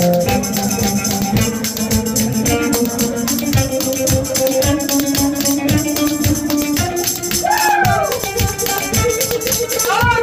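Pair of spoons rattled in a fast clicking rhythm, played along with live acoustic music that has held notes and sliding, falling notes.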